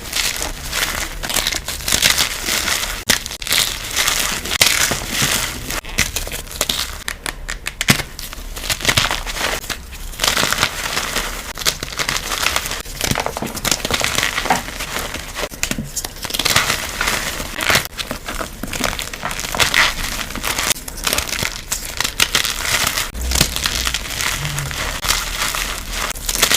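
Reformed gym chalk and cornstarch powder crushed and squeezed, a dense, continuous run of crunches and crackles, played back at double speed.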